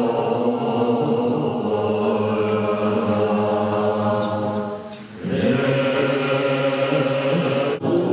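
Tibetan Buddhist monks chanting a puja liturgy together in low voices, a steady drone. It breaks off for a breath about five seconds in and resumes.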